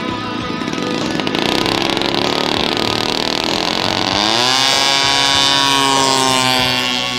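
Engine of a radio-controlled scale Pilatus PC-21 model running up for takeoff. Its pitch climbs steeply about four seconds in, then holds high as the model rolls down the runway at full power.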